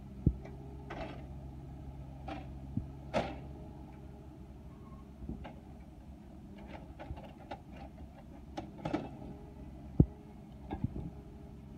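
John Deere 1110E forwarder's diesel engine running steadily under its crane work, with scattered knocks and scrapes of logs being handled by the crane and grapple; a sharp knock about ten seconds in is the loudest.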